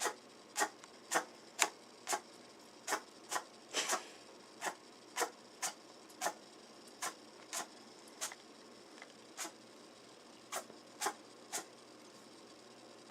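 Netherland dwarf rabbit sneezing again and again: about twenty short, sharp sneezes, one every half second or so, uneven, with a short pause near the end.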